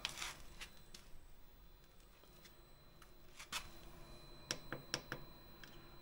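Faint scattered clicks and taps of a hand at the diesel heater's control panel, with a quick run of sharper clicks near the end as its buttons are pressed.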